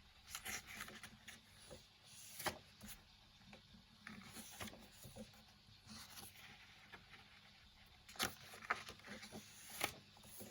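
Pages of a colouring book being turned by hand: a series of short paper swishes and soft taps, loudest a little after eight seconds in.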